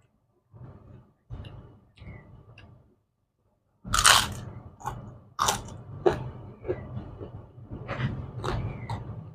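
Close-miked chewing, then from about four seconds in, loud crunching bites into crisp kerupuk crackers, several sharp cracks followed by chewing.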